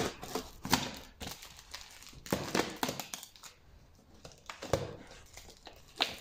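Hands handling a cardboard parcel, picking at packing tape and a plastic packing-list envelope: scattered rustles, crinkles and light taps.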